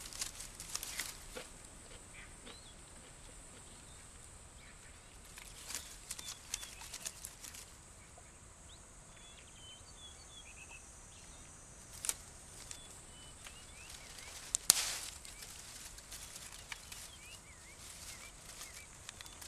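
Quiet forest ambience with faint bird chirps over a steady high hiss, broken by rustling and a few sharp snaps of twigs and fruit stems as a chimpanzee feeds in a fruiting tree; the loudest snap comes about three-quarters of the way in.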